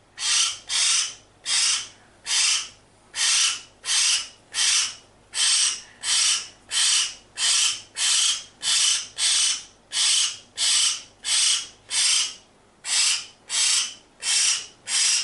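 Baby hill myna giving short, harsh, raspy calls over and over, about two a second, with a brief pause about twelve seconds in.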